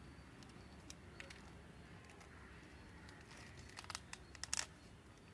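Faint crinkling and rustling of a plastic bag packed with cocopeat as it is handled and tied shut with nylon string, with scattered small crackles and a louder cluster about four seconds in.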